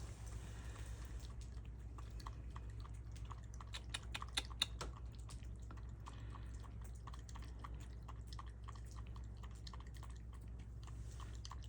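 A cat lapping water: a long run of small wet clicks, a few a second, a little louder about four to five seconds in.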